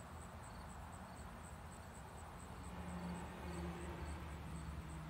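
Insects chirping in an even rhythm, about three high chirps a second, over a faint steady low hum.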